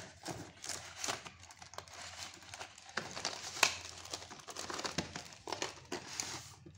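Cardboard earphone box being opened by hand: its inner tray slides out of the printed sleeve with scraping, rustling and irregular light clicks, and one sharper tap a little past halfway.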